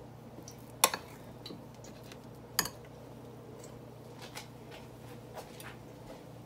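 A few sharp clinks of a metal spoon against a glass mixing bowl while soft bread dough is stirred, the loudest about two and a half seconds in, over a steady low hum.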